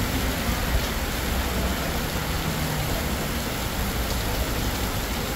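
Heavy rain pouring onto a paved street, a steady hiss with a low rumble of traffic underneath.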